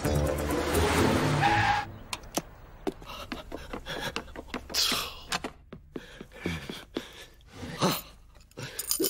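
Cartoon soundtrack: music for about the first two seconds, cutting off abruptly, then a run of small clicks, knocks and bumps with a couple of louder thuds.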